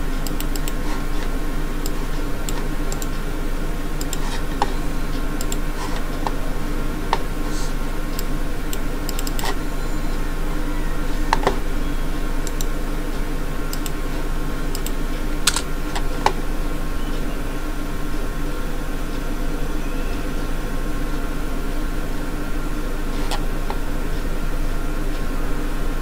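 Computer keyboard typing: scattered keystrokes and clicks, more of them in the first half, over a steady low electrical hum.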